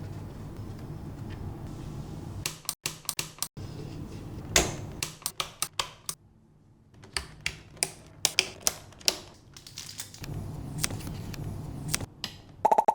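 Sharp, irregular plastic-and-metal clicks and snaps of computer hardware being handled, coming in quick clusters with short pauses. A low steady hum sits underneath at the start and again near the end.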